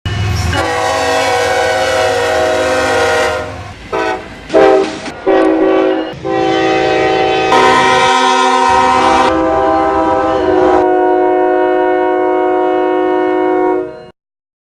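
Locomotive air horns sounding in a series of spliced blasts: a long chord, a few short toots, then several longer blasts with differently pitched chords, each changing abruptly at the cuts and the last ending suddenly.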